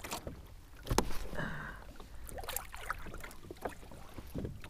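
Handling noises on a plastic kayak as a fish is worked in the hands: a few knocks and clicks, the clearest about a second in, with short rustles between.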